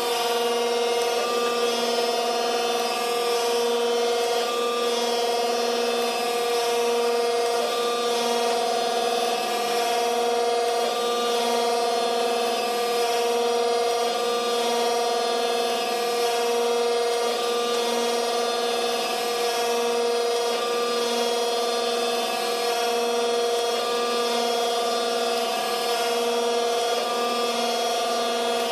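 Kent surface grinder running under power: a steady, even electric-motor whine and hum with no change throughout, its lower hum pulsing faintly about once a second.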